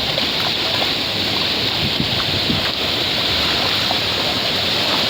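Surf washing steadily onto a beach, mixed with wind on the microphone.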